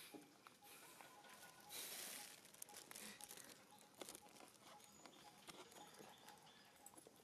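Near silence, with faint scattered rustles and small crunching clicks from macaques picking at leaves and chewing food.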